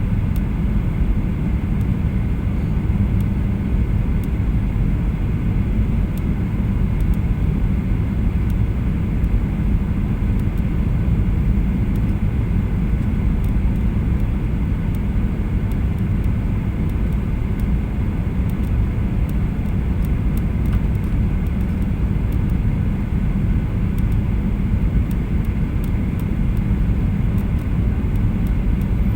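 Steady cabin noise of a Boeing 737-800 heard from inside the passenger cabin: a constant low rumble of the engines and airflow, with a faint steady higher tone over it.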